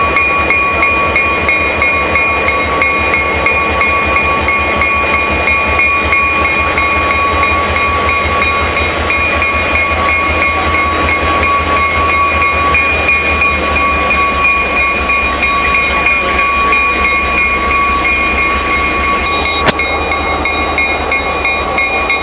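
Diesel locomotive engine running as the locomotive rolls slowly past, a steady high whine over a low throbbing rumble. The rumble eases off after about fifteen seconds as the locomotive moves away.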